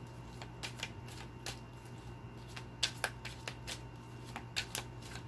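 A deck of tarot cards being shuffled by hand: a run of quiet, irregular flicks and taps of card on card.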